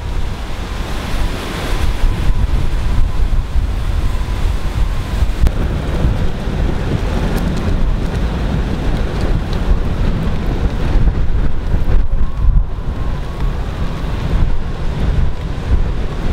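Hurricane-force wind blowing hard, with heavy buffeting on the microphone and a dense, unbroken rushing noise of wind and rain.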